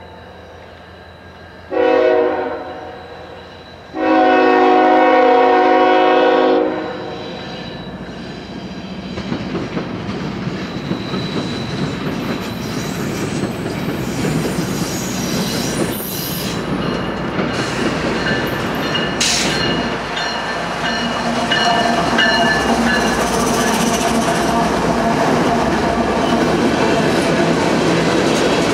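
Horn of a Norfolk Southern GE ES44AC locomotive leading a train of empty crude-oil tank cars: a short blast, then a longer one of about two and a half seconds. The train's rumble then builds as it approaches, and the tank cars roll past with their wheels clacking over the rail joints.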